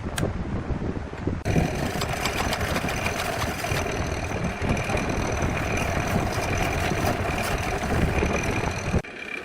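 Wood lathe running with a steady mechanical whine, changing abruptly about a second and a half in and again near the end.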